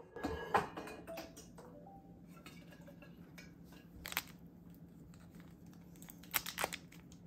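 Kitchen handling sounds: light clicks and knocks of a cup and other objects being picked up and set down on the countertop, several in the first second and a half, one about four seconds in and a quick cluster a little after six seconds, over a low steady hum.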